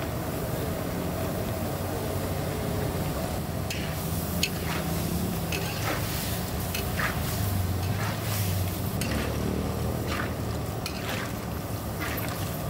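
Goat meat stir-frying in a huge pot: a steady sizzle over a low rumble. From about four seconds in, a stirring utensil repeatedly scrapes and clanks against the pot.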